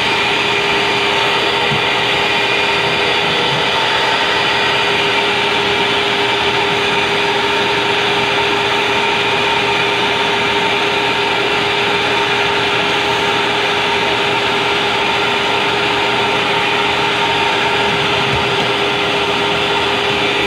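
Vacuum cleaner running steadily: a constant motor whine over the rush of its suction.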